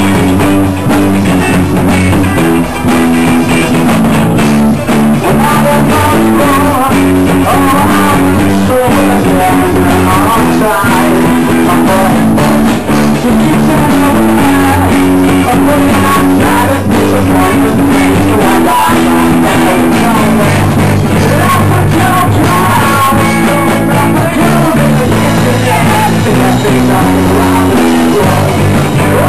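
Live rock band playing loud: electric guitars, bass guitar and drums, with a male voice singing over them.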